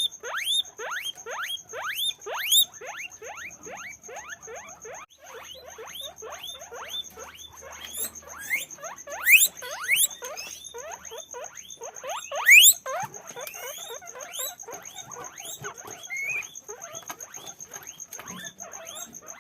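Several guinea pigs wheeking: a continuous run of short squeaks that rise in pitch, overlapping and several a second, with a couple of louder ones partway through.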